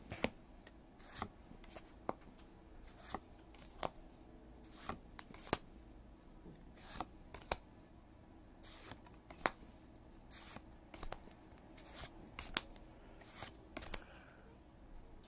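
Pokémon trading cards being flipped through one at a time from a handheld stack, each card slid off and tucked behind with a short, sharp card snap, roughly every half second to a second at an uneven pace.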